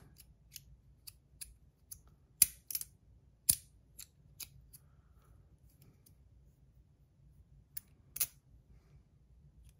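Brass magnetic stack slider fidget clicking as its pieces are slid and snapped into place: about a dozen sharp clicks at an uneven pace, with a pause of about three seconds after the middle.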